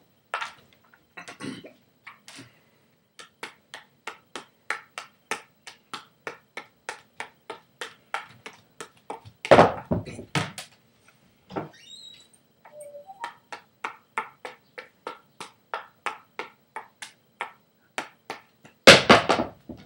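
Juggling clubs slapping into the hands in a steady rhythm of about three catches a second. The rhythm is broken twice by a louder clatter of clubs dropped to the floor, once about halfway through and again near the end.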